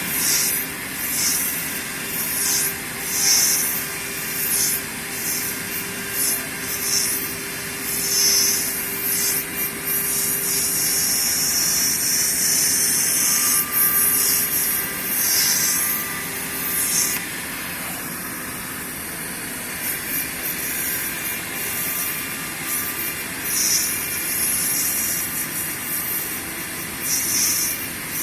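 An 800 W CNC router spindle on a flatbed cutting plotter milling PVC sheet: a steady machine hum with repeated bursts of high hiss as the cutter bites into the plastic. A steady tone in the sound drops away about two-thirds of the way through.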